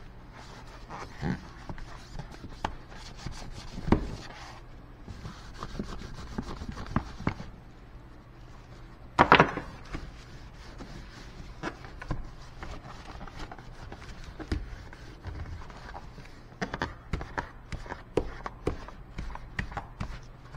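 A rag wiping and rubbing out a plastic paint roller tray to clean dust from it, with scattered knocks and clunks as the tray is handled; the loudest is a single knock about nine seconds in.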